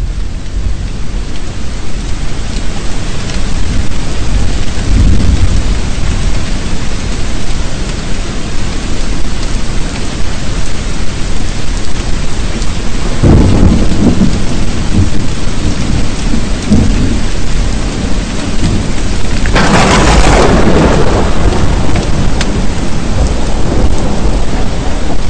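Thunderstorm: steady heavy rain with low rolls of thunder several times, and a louder, sharper clap of thunder about 20 seconds in.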